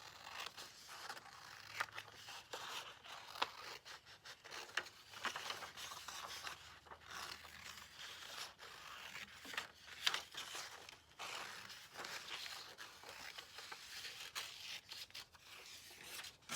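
Scissors cutting out a shape from a sheet of paper: a long run of faint, short snips with the paper rustling between them.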